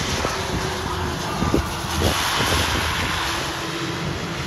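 Twin-turboprop Beechcraft King Air on its landing roll just after touchdown: engines and propellers running, a little louder about two seconds in. Wind buffets the microphone.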